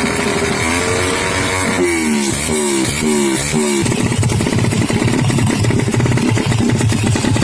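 Motorcycle engine revved hard, its pitch sweeping up again and again in quick rising blips. About four seconds in, the clear engine note gives way to a rough, uneven running.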